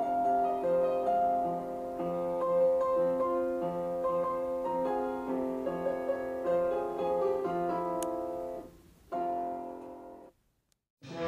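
Background piano music with a steady run of notes; it stops a little after ten seconds in, and after a moment of silence another piece begins.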